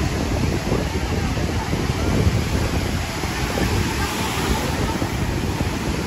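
Small sea waves washing up on a sandy shore, with wind buffeting the microphone and indistinct chatter from people on the beach.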